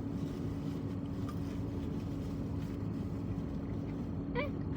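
Steady low background hum with a constant tone, like machinery or a running engine heard from inside; a brief vocal sound near the end.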